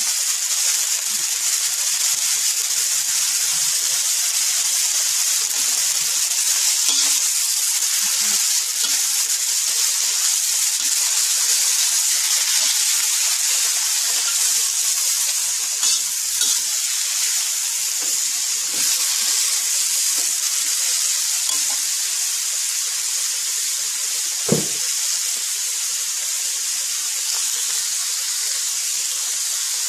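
Water spinach stir-frying in a hot wok, a steady sizzle as it is turned with a spatula. A few short knocks break in, the sharpest one near the end.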